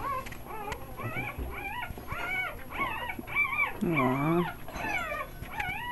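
Three-day-old pit bull puppy crying: a rapid run of short, high-pitched whimpering cries, two or three a second. About four seconds in there is one lower, longer moan.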